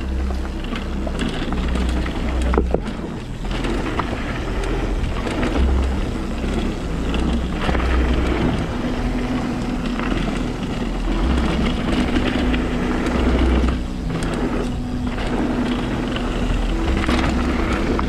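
Trek Remedy 8 full-suspension mountain bike riding fast down a flow trail: tyres rolling on the dirt, wind buffeting the microphone, and knocks and rattles from the bike over bumps, with a steady hum joining about halfway.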